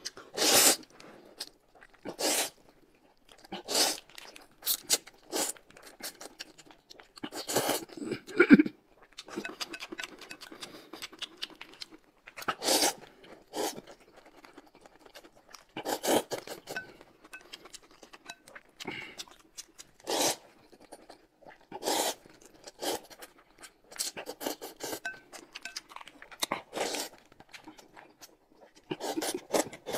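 Close-miked eating: crunching and chewing in short, irregular bites, a second or two apart, with quieter mouth noises between.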